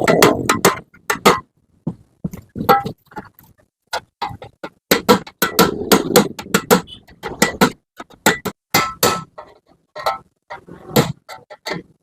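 Hammer blows on the metal body of a Yamaha RX-King motorcycle exhaust being knocked open: a long run of sharp, irregular metallic strikes, some in quick clusters, with short pauses about 2 and 4 seconds in.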